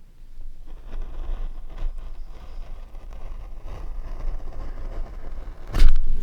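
Continuous scraping and rustling from hand work on a linocut block, with a sharp knock near the end.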